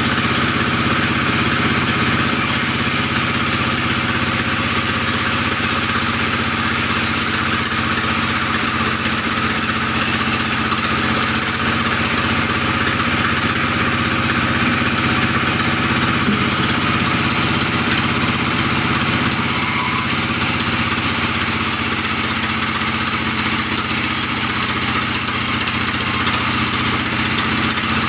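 Band sawmill running steadily while its blade rips a log of albasia wood lengthways: an even, unbroken machine sound with a hiss of cutting over it.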